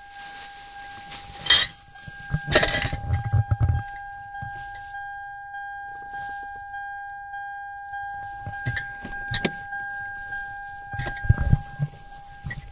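Handling noise inside a car: rustling, knocks and a few heavier thumps, over a steady high electronic tone that holds unbroken throughout.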